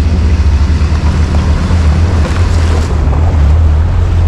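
Ford Ranchero pickup driving on a dirt and gravel track: a steady low engine and road rumble with wind buffeting the microphone.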